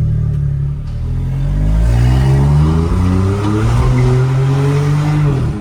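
VW Polo 1.0 TSI three-cylinder turbo engine accelerating hard through a stainless-steel exhaust with its cutout valve open. The pitch climbs steadily for several seconds, then drops sharply near the end at an upshift.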